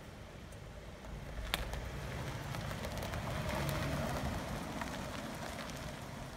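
A car moving slowly across a gravel car park: low engine rumble with tyres crunching on gravel, growing louder toward the middle and easing near the end, with one sharp click about a second and a half in.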